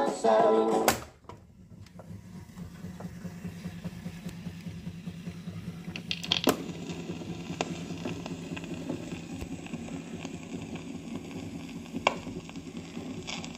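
Music from a Tefifon Holiday Luxus band player cuts off about a second in as its off key is pressed. A low steady hum follows, with a sharp plastic click about six seconds in as the pickup cover on top is handled, and a smaller click near the end.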